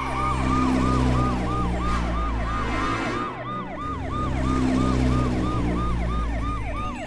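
Electronic siren of a Fireman Sam toy fire engine, a fast rising-and-falling wail repeating about four times a second, over a low steady hum.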